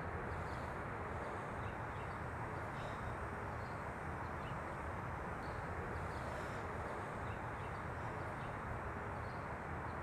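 Outdoor street ambience: a steady low rumble and hiss with faint, scattered bird chirps.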